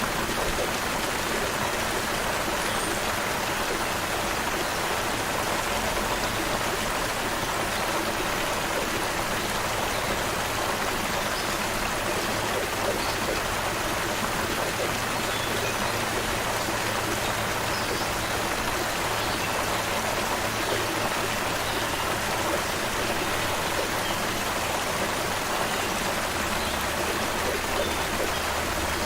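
Creek water flowing steadily, with a few faint high bird chirps now and then.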